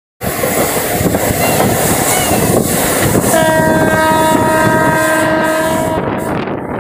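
Passenger train running along the track, heard from an open coach door, with the locomotive's horn sounding a steady chord of several notes for about three seconds, starting about halfway in and stopping shortly before the end.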